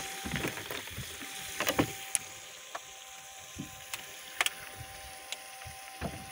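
Scattered knocks and clicks of gear being handled aboard a small open fishing boat, the loudest about two seconds in, over a faint steady hum and water noise.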